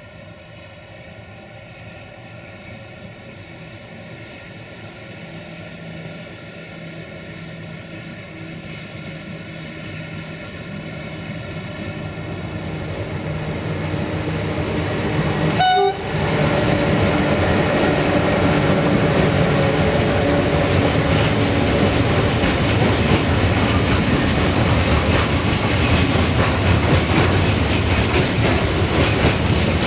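060-EA (LE5100kW) electric locomotive approaching with a steady multi-tone electrical hum that grows steadily louder. After it passes about halfway through, the loaded freight wagons rumble and clatter over the rail joints, and a high wheel squeal starts near the end.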